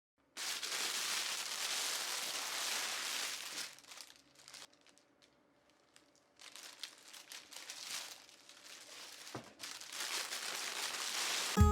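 Packaging being handled, crinkling and rustling: a dense rustle for the first few seconds, then scattered crackles, then rustling again, louder near the end.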